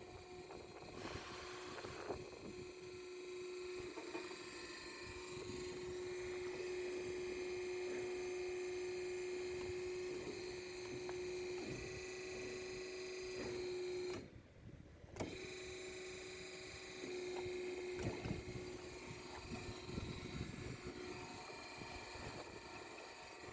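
Band saw machine running with a steady hum, broken by scattered light knocks and a sudden drop-out for about a second about two-thirds of the way through.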